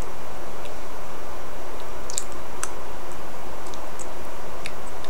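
A few faint, scattered mouth clicks from sucking and chewing a Toxic Waste hard sour candy, over a steady hiss.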